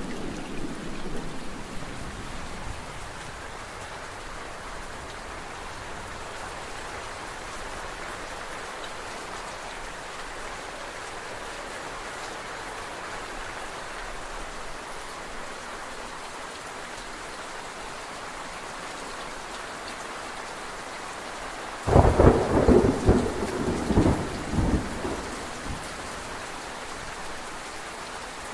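Steady rain falling. A rumble of thunder dies away in the first few seconds, and a loud clap of thunder with rolling rumble breaks in about 22 seconds in, lasting about four seconds.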